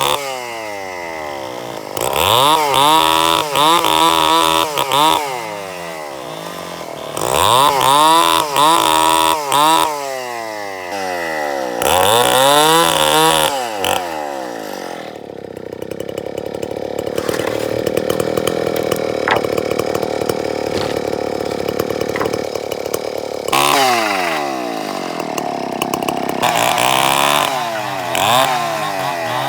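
Two-stroke chainsaw revved up and down again and again, falling back between bursts, with a longer steady stretch at speed about halfway through as it bites into the wood.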